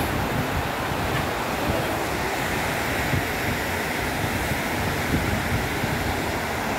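Steady rushing of water falling in a continuous sheet down the walls of the 9/11 Memorial reflecting pool into the basin, with some wind buffeting the microphone.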